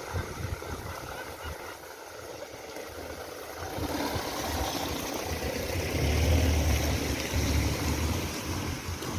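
A car drives past on wet cobblestones. Tyre hiss and engine noise grow from about four seconds in and are loudest around six to eight seconds, then ease off.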